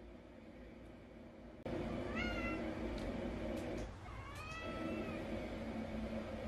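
Munchkin Napoleon cat meowing twice, a short rising meow about two seconds in and a longer one about four seconds in, begging for treats. A steady background hum runs underneath and gets louder just before the first meow.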